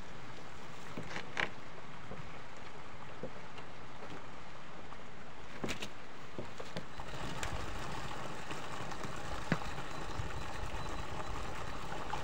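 Steady rushing noise of water draining out of a pond through its outlet channel, mixed with wind on the microphone. A few light clicks and knocks, the sharpest about a second and a half in and again near 9.5 seconds.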